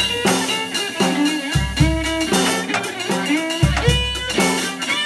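Live instrumental jam: an electric violin bows a melody with bending notes over a drum kit with cymbal hits, and a plucked low string line repeats underneath.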